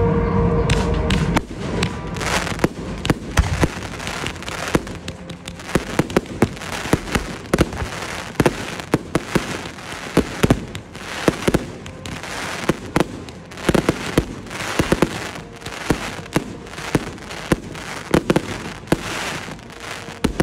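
Aerial fireworks bursting in a rapid, irregular run of sharp bangs and crackles. A steady droning tone cuts off about a second in.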